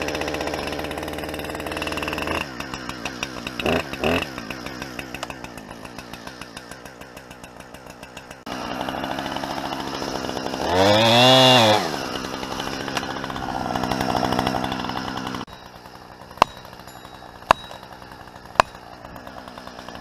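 Husqvarna two-stroke chainsaw running at the trunk of a dead pine, its throttle opened and closed in one rise and fall of engine pitch about halfway through before it drops back to a quieter idle. Near the end, three sharp knocks come about a second apart.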